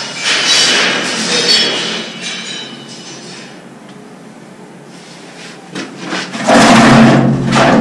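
PVC drain pipe being handled and fitted: a scraping rub of plastic for the first couple of seconds, quieter handling with a few light clicks, then a loud burst of knocking and scraping for about a second near the end.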